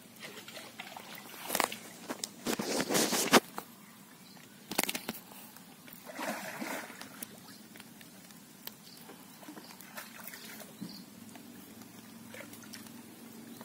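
Irregular bursts of sloshing and splashing, with rustling between them, loudest and densest about two to three seconds in: a freshly caught tilapia being handled and splashing in water.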